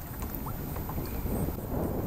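Low rumble of water sloshing against a plastic kayak hull, mixed with wind on the microphone.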